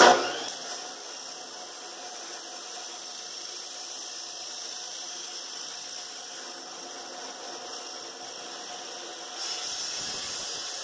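DeWalt abrasive chop saw spinning up and grinding steadily through 1-inch schedule 40 steel gas pipe. Near the end the Evolution Rage 2 carbide dry-cut (cold-cut) saw comes in on its own cut, and the sound gets louder and brighter.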